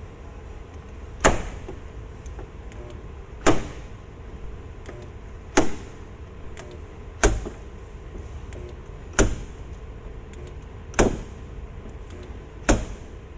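Spot puller (stud-welder dent puller) working a dent in a car door panel: seven sharp snaps about two seconds apart, each with a brief tail, as the tip is fired onto the panel and pulled again and again.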